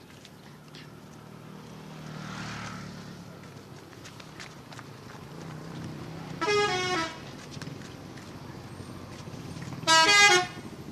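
Multi-tone 'telolet' musical horn of a Pandawa 87 bus, sounding twice: a short blast about six and a half seconds in and a louder one near the end, each a few notes that change pitch in steps. A low engine rumble of road traffic runs underneath.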